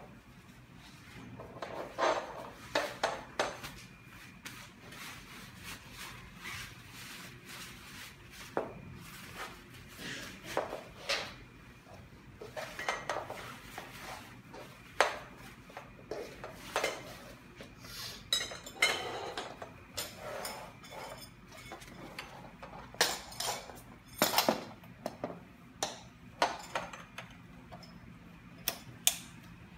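Irregular clinks and knocks of hollow metal tubes and fittings of a bed-rail frame being handled and fitted together, some in quick clusters, with rustling of its mesh fabric cover.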